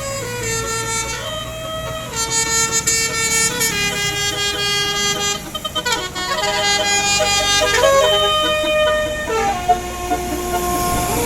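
Bus telolet horn, a bank of air horns playing a tune: a run of stepped notes, often two or more sounding together, with a short choppy break about halfway through and a longer held note near the end.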